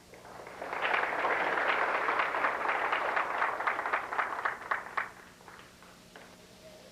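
Audience applause for a newly called inductee: a patter of many hands clapping that swells within the first second and dies away about five seconds in.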